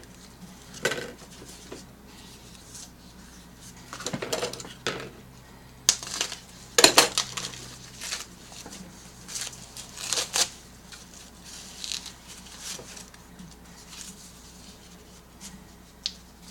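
Intermittent clicks, taps and rustles of a small parcel being handled and opened, with a few louder clatters.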